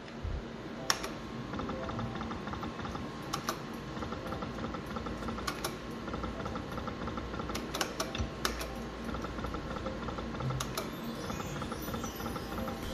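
EGT Shining Crown video slot machine playing spins: the reels spin and stop with a string of sharp clicks and ticks, several per spin.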